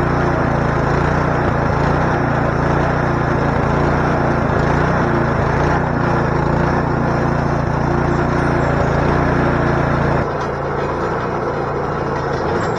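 Troy-Bilt snow thrower's small engine running steadily; about ten seconds in its sound changes and drops slightly in level.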